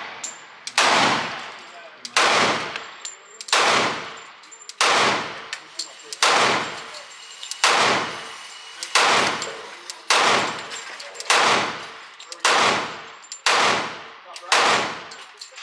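Glock 30S .45 ACP pistol firing a steady string of twelve shots, about one every 1.2 seconds, each shot echoing and fading in the range. It is firing one-handed through a function test, cycling with no stoppages.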